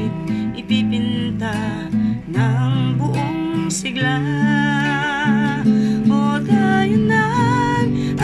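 Background music led by acoustic guitar, with low bass notes changing about once a second and a wavering melody line above.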